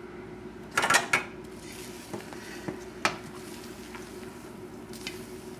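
A rubber spatula scraping and knocking against a stainless steel mixing bowl while folding egg whites into a thick chocolate mousse mixture. The loudest strokes come in a quick cluster about a second in and once more about three seconds in, with a few fainter scrapes between, over a steady low hum.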